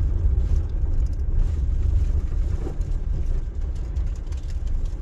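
Vehicle driving off-road on a dirt track, heard from inside: a steady low rumble of engine and tyres with a few light rattles.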